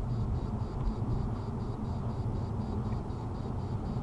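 Steady road and engine rumble inside a car's cabin while driving at about 20 to 30 mph, picked up by a dash cam's built-in microphone.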